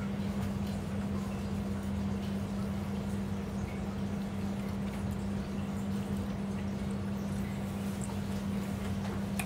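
A steady low hum throughout, with faint chewing and mouth sounds of someone eating a folded slice of lavash-bread pizza.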